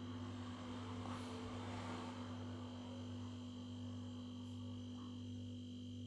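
Steady low electrical hum with a thin high tone above it, and a faint soft noise during the first couple of seconds.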